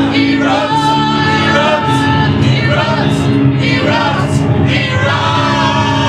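Live electric keyboard holding sustained chords while several voices sing together.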